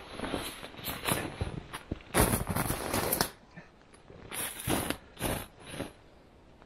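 Winter clothing rustling and swishing as a jacket is pulled off, in a run of irregular bursts, the loudest a second-long swish about two seconds in. Shorter crunches and rustles follow as the man moves about in the snow.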